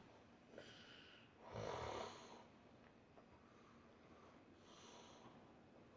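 Quiet snoring: a faint breath about half a second in, one louder snore about a second and a half in, and another faint breath near the end.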